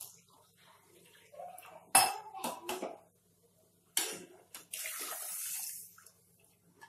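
A steel ladle knocks and clinks against a pressure cooker pot as soaked dal and rice are stirred in, with sharp knocks about two and four seconds in. Just before the end comes about a second of hissing liquid as more of the wet dal and water goes into the pot.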